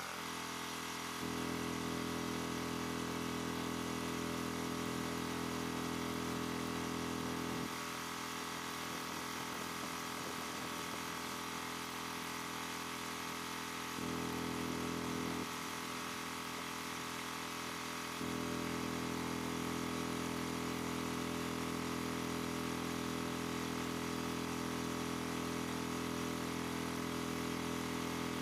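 Steady machine hum made of several steady tones over a constant hiss. It steps up louder about a second in, drops back about a third of the way through, and steps up again for short and then long stretches later on.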